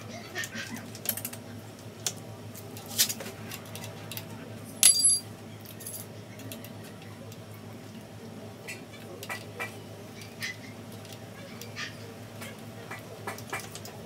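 Scattered small metal clicks and ticks from hand work on a bicycle's mechanical disc brake caliper and rotor, with one louder clink that rings briefly about five seconds in.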